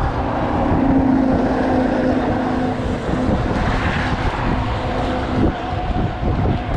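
Wind buffeting the microphone and low rumble of a bicycle rolling along a path, with a steady hum that holds from about a second in until about five and a half seconds.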